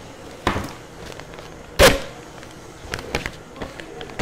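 Plastic piping bags being pulled out and handled: a few short, sharp rustles and knocks, the loudest about two seconds in.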